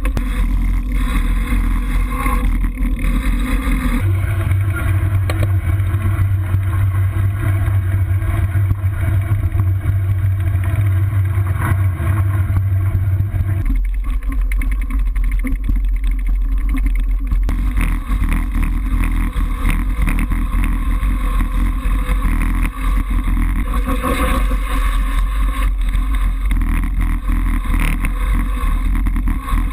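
Steady rumble of wind buffeting the microphone and bicycle tyres rolling over a gravel track while riding. The noise changes abruptly about 4 and 14 seconds in.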